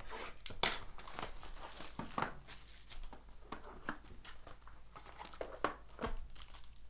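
Plastic wrapping crinkling and tearing in bursts of short crackles as a sealed trading-card box is unwrapped and opened by hand.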